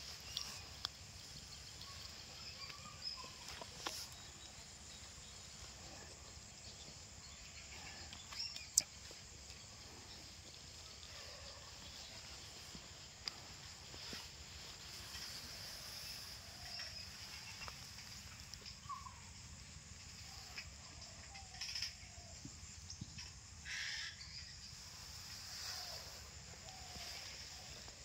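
Quiet rural outdoor ambience: a steady high-pitched hum with faint bird chirps, broken by occasional soft clicks and knocks, the sharpest about nine seconds in.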